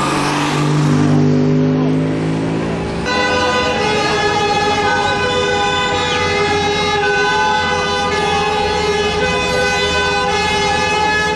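Many vehicle horns held down together, a steady chord of overlapping tones over crowd noise. It starts suddenly about three seconds in, after lower drawn-out tones.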